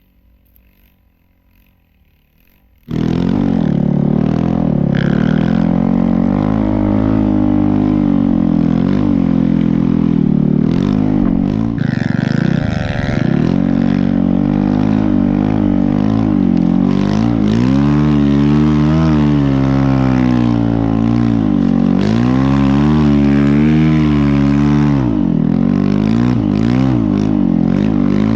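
Snow bike's dirt-bike engine running under load, revving up and down repeatedly as it rides. It cuts in abruptly about three seconds in, after a faint, quiet stretch.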